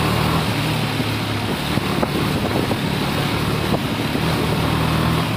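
Motorcycle engine running at a steady pitch while riding, with loud wind rushing over the microphone.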